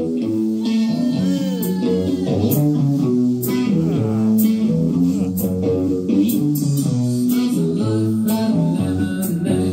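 Live rock band playing: electric guitar and bass guitar over a drum kit, with drum hits at a steady beat.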